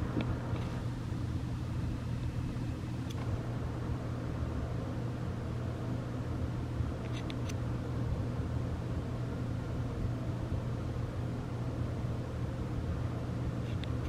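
Steady low hum with a faint noisy rumble, broken by a few faint ticks.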